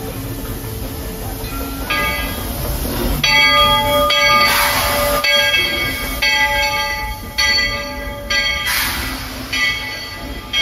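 Steam locomotive's bell ringing repeatedly, about once a second, starting about two seconds in, over the sound of the moving train. Two short rushes of hiss come near the middle and near the end.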